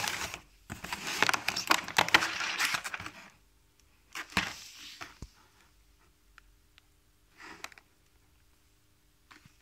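Packaging being opened and handled, crackling and rustling in a dense run for the first three seconds or so, then a shorter burst and a few scattered ticks and brief rustles.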